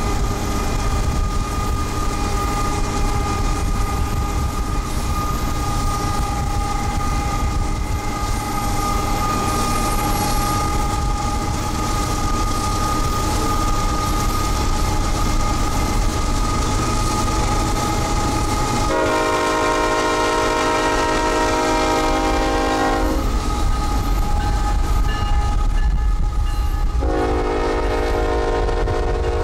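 Diesel freight locomotives running alongside a moving car, a steady rumble with a steady whine over it. About two-thirds of the way through, the lead locomotive's air horn sounds one long chord of about four seconds, and a second long blast starts near the end.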